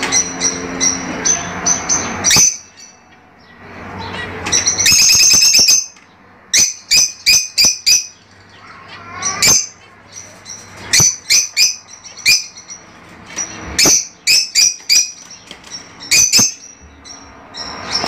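Fischer's lovebirds calling: shrill, sharp chirps in quick runs. There is a dense burst about five seconds in, then bunches of calls with short pauses between them.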